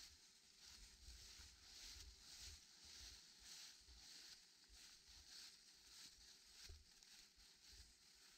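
Faint footsteps crunching through dry fallen leaves on a forest trail, about two steps a second, with low wind rumble on the microphone.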